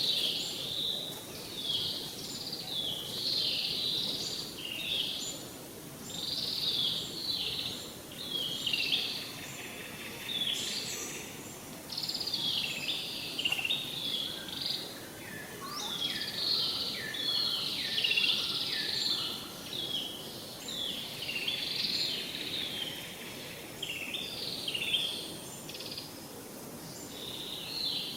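Birds chirping outdoors: many short, falling calls overlap one another without a break, over a steady low background hiss.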